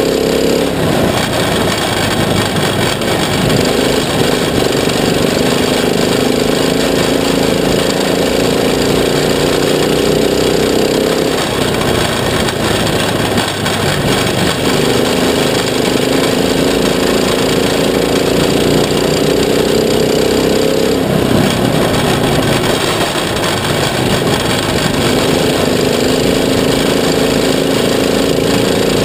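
A racing Stoxkart's engine heard from inside the cockpit, holding a steady, hard-working note along the straights and dropping away into a rougher sound through each bend, the cycle coming round about every ten seconds, over a constant rush of noise.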